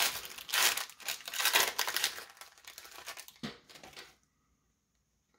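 Foil wrapper of a hockey card pack being torn open and crinkled: a dense run of crackles and rustles that stops about four seconds in.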